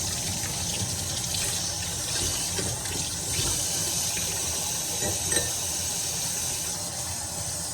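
Steady rush of running water that cuts off suddenly at the end.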